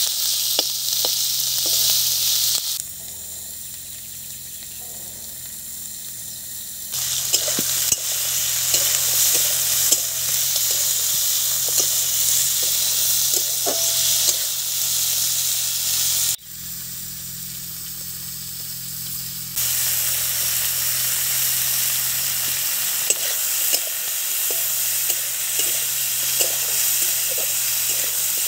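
Mutton pieces sizzling as they fry in a metal wok, with the scrape and clink of a metal spatula stirring them. The sizzle drops away sharply twice, for a few seconds about three seconds in and again about halfway through.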